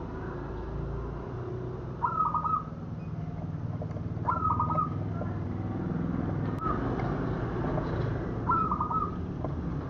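Zebra dove (perkutut) cooing: three short phrases of quick, rippling notes, a few seconds apart, over a low background rumble.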